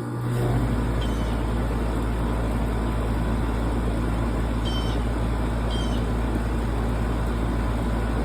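2004 Goodman 4-ton central air conditioner's outdoor unit running steadily just after start-up: a low compressor hum under the rush of the condenser fan.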